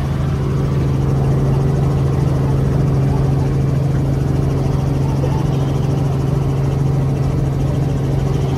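Steady drone of a Robinson R44 helicopter's piston engine and rotor, heard from inside the cabin in flight.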